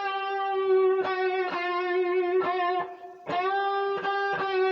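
Electric guitar playing a blues lick: a single note bent up and held, picked again about twice a second, with a shaky vibrato. The phrase stops briefly near the three-second mark, then starts again with a fresh upward bend.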